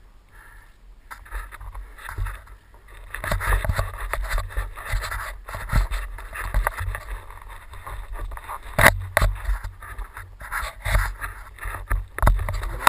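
Irregular scraping, clicking and knocking from a mountain bike and its rider moving close to a helmet-mounted camera on a dirt trail, over a low rumble, with a sharp knock about nine seconds in.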